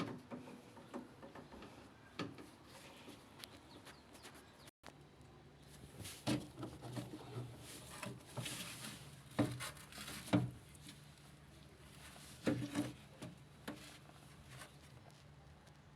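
Scattered knocks, clicks and light rattles of hands handling parts during washing-machine repair work. A low steady hum starts after a sudden break about five seconds in.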